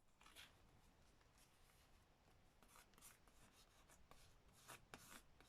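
Faint rustling and rubbing of paper cut-outs being handled and pressed down, in a few short scratchy strokes.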